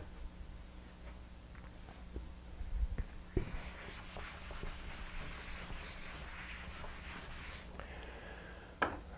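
Scratching of a pen on paper: a run of writing or sketching strokes lasting about four seconds, after a couple of soft knocks on the desk.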